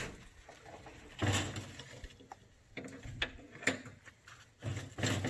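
Metal ramp gate of a steel utility trailer being swung up and latched closed: a series of separate clanks and rattles, the biggest about a second in and near the end.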